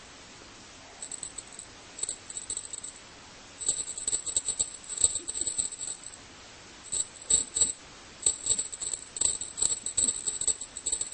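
Rattling in irregular bursts of about one to two seconds, made of many quick small clicks, with short quiet gaps between the bursts.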